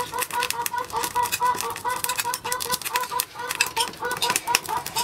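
Close-up eating sounds from a person eating soup with a spoon: quick wet clicks, smacks and slurps of the mouth. Behind them, a short pitched chirping call repeats rapidly and evenly, several times a second.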